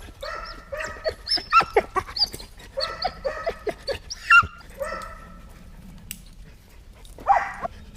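A dog giving a rapid run of short, high-pitched whining calls that slide in pitch, several a second, which stop about five seconds in and start again near the end.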